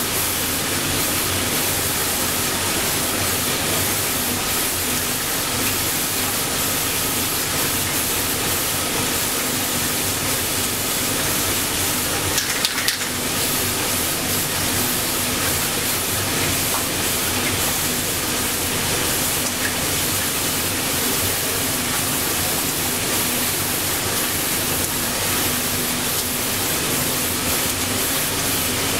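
Aerosol spray-paint can hissing as it is sprayed onto a motorcycle front fender, over a steady rushing background noise.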